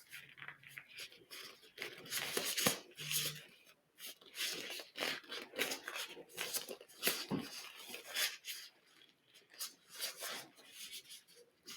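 Sterile gloves being pulled onto the hands: irregular rubbing and rustling of the gloves, with small crackles and snaps.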